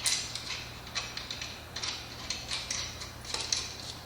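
Light metallic clicking, irregular at about three or four clicks a second, as the nut is tightened down onto the washer on the bolt that holds the wheel lock's cover.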